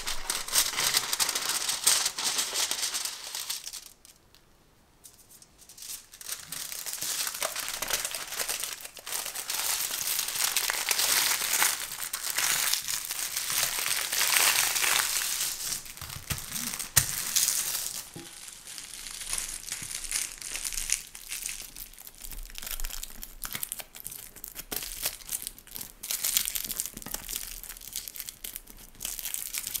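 Scissors cutting through baking paper, then after a short pause the crinkling and rustling of a strip of metallic foil as it is folded flat and wrapped around the side of a round metal cake pan. The crinkling is busiest in the middle and turns to softer, scattered rustles in the last third.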